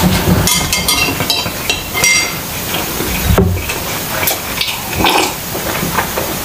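Close-miked eating sounds: a metal fork clicking and scraping on a ceramic plate along with chewing, then sips of broth from a glass bowl a few seconds in.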